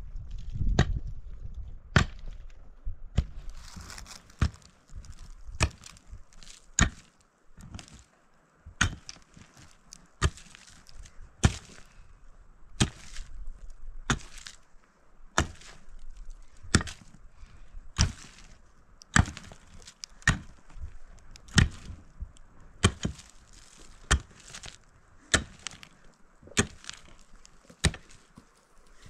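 Pickaxe striking hard, stony dry soil again and again as a trench is dug, about one sharp blow a second.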